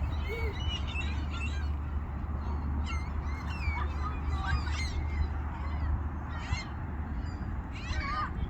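A flock of gulls calling, many short overlapping cries, some sliding in pitch, over a steady low rumble.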